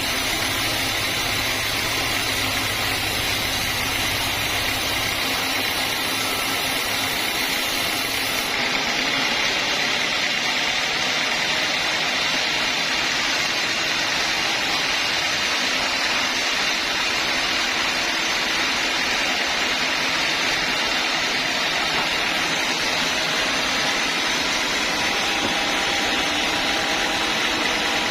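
Homemade band sawmill running steadily with a dense mechanical drone. About eight seconds in, the deep hum underneath and the highest hiss drop away, and the main noise carries on.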